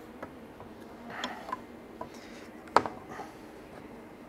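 Light clicks and knocks of a steel square and pine timber being handled on a workbench, with a brief scrape about a second in and one sharper knock a little under three seconds in.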